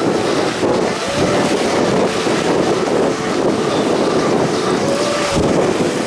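Wind buffeting the microphone over the steady rush of ocean surf.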